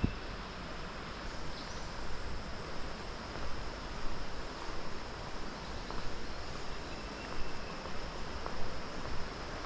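Outdoor woodland ambience: a steady rushing hiss with a faint, steady high insect drone and a few soft ticks.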